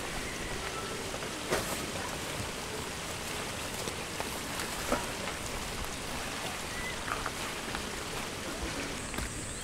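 Steady outdoor background hiss, with a few light knocks from camping gear being handled and lifted out of a minivan's cargo area.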